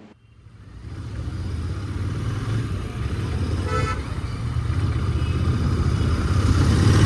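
Royal Enfield Continental GT650's 648 cc parallel-twin running under way with wind noise, growing louder as the bike picks up speed. A vehicle horn toots briefly about four seconds in.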